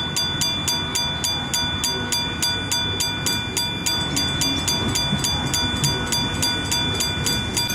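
Miniature railway level-crossing bell ringing in a fast, even rhythm of about three strikes a second, each strike ringing on at fixed pitches.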